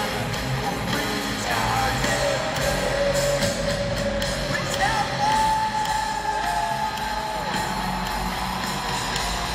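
Live heavy-metal band music heard from the stands of a stadium: electric guitar holding long sustained notes that step up and bend, over bass and drums, with scattered crowd yells.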